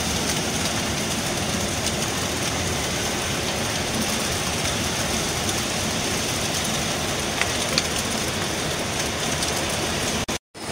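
Steady rumble and hiss of a sightseeing bus riding through city traffic in heavy rain, heard from inside behind its rain-streaked window. The sound cuts out for a moment just before the end.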